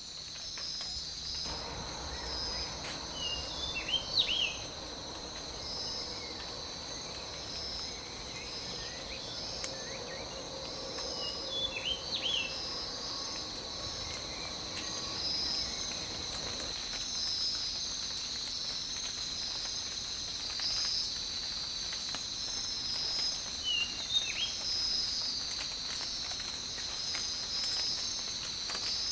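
Steady high-pitched insect chorus of crickets or cicadas, with a pulsing trill over it. Short bird chirps break in about four seconds in, again around twelve seconds, and once more near the end.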